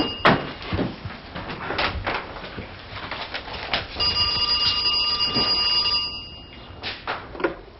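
Landline telephone ringing: one ring cuts off just after the start and a second ring sounds from about four seconds in to nearly seven seconds, with a few light knocks in the gap.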